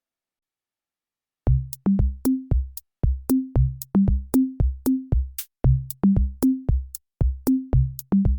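Background electronic music: a steady drum-machine beat of short, deep, pitched drum hits with sharp ticks, about two to three hits a second. It starts after about a second and a half of silence.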